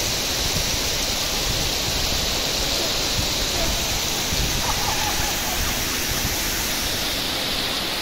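A tall waterfall falling onto rocks, a steady even rushing of water.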